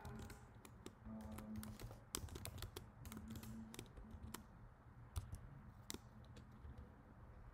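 Faint typing on a computer keyboard: irregular keystroke clicks, most of them between about one and six seconds in.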